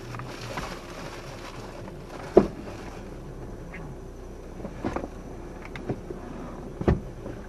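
A few short sharp knocks or clunks over a faint steady low hum, the loudest about two and a half seconds in and others near five, six and seven seconds.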